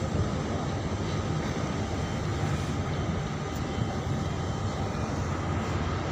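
A ship's engine running steadily while the vessel is underway: a constant low rumble with a faint steady hum above it.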